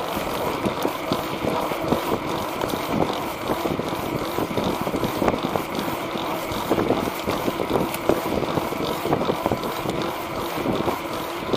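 Tyre rolling over a concrete sidewalk at riding speed, with wind rushing over the microphone and a rapid scatter of small clicks and bumps from the pavement.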